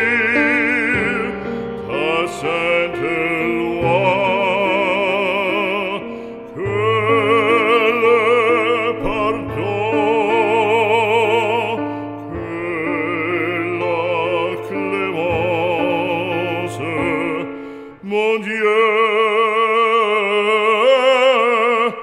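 Background music: a French hymn sung in operatic style, long held notes with wide vibrato over instrumental accompaniment.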